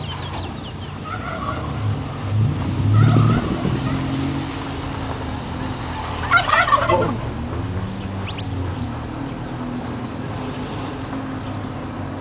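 A turkey gobbling: one loud, rapid warbling gobble about six seconds in, with shorter calls about one and two and a half seconds in. Underneath, a car engine runs steadily at low revs, swelling briefly about three seconds in.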